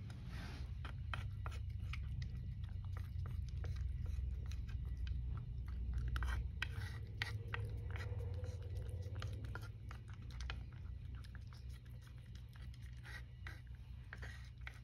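A cat chewing dry kibble, with irregular crisp crunches that thin out after about ten seconds. A small spoon scrapes and taps against the wooden feeding tray.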